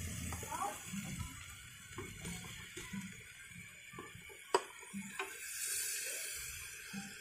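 Raw duck pieces being scraped with a metal spatula from a metal bowl into a pot of roasted prahok paste: scattered light clinks and wet sounds, with one sharp click about halfway through.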